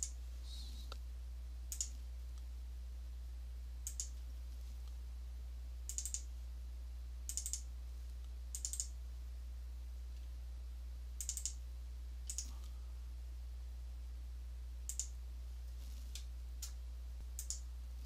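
Computer mouse clicking while folders are opened and files are selected, a click every second or two, several in quick double-click pairs, over a steady low hum.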